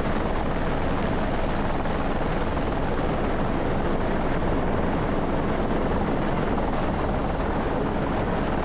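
Helicopter running steadily, heard from beneath while hanging on its hook line: a dense, unbroken rotor and engine noise with a thin high whine above it.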